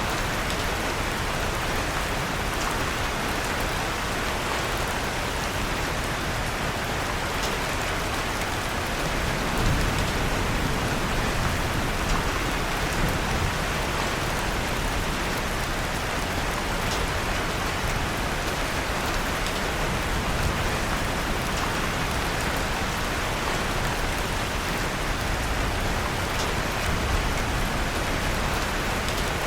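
Steady rain falling, an even hiss, with a wood fire in a fireplace giving a faint crackle every few seconds.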